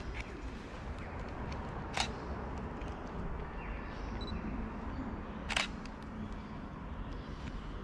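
Canon DSLR shutter firing twice, two sharp clicks about three and a half seconds apart, over steady low background noise.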